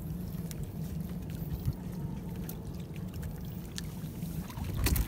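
Fishing net being hauled by hand over the side of a small wooden boat, with water pouring and dripping off the mesh and scattered light knocks and clicks, over a steady low hum.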